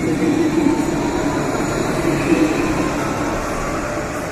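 Alstom Citadis tram pulling away from the stop, its traction motors giving a faint whine that rises in pitch over a steady running noise of wheels on rail.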